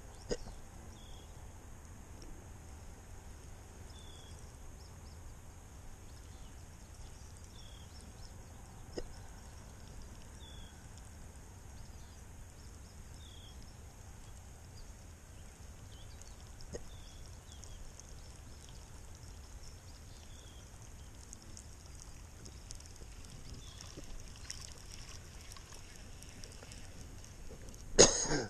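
Quiet outdoor ambience with a faint steady low hum. A short, high, falling chirp repeats every second or two, and a few faint clicks stand out. A sudden loud noise comes right at the end.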